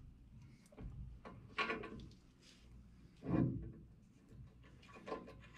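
Metal parts knocking and scraping as a brake rotor hub is worked onto a drop spindle and fitted by hand. There are a few separate clunks, the loudest about a second and a half and three and a half seconds in.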